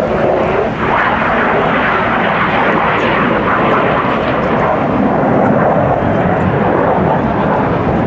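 A USAF Thunderbirds F-16 Fighting Falcon flying a display pass, its single jet engine making loud, steady jet noise throughout.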